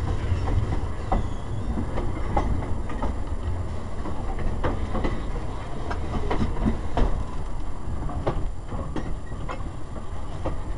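Railroad caboose rolling along the track, heard from its open end platform: a steady low rumble with irregular clicks and clanks from the wheels and running gear.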